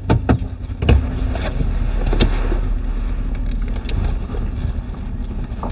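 A vehicle on the move: a steady low rumble of engine and road noise, with a few sharp knocks or rattles near the start and about two seconds in.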